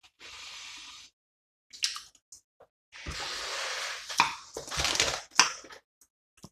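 Plastic crisp packet of puffed snacks crinkling and crackling as it is handled, in two spells: a short one at the start and a longer one from about halfway, ending in a run of sharp crackles.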